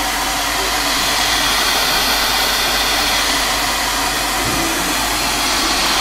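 A Miyako 2.2-litre, 1500-watt electric kettle heating water, making a steady rushing hiss.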